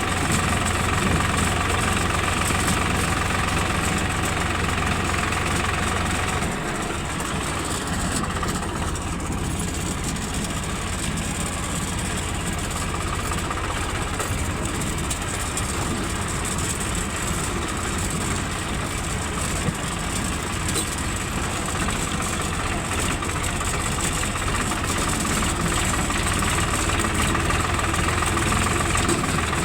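Excavator's diesel engine running steadily at idle, its tone easing down slightly about six seconds in.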